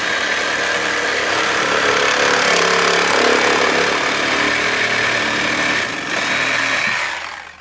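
Cordless reciprocating saw running steadily as it cuts through black ABS plastic pipe, with a brief dip about six seconds in; the saw stops near the end.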